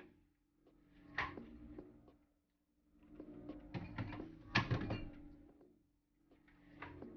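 Items being handled and set down: irregular knocks and clatter in three groups, over a faint steady low hum.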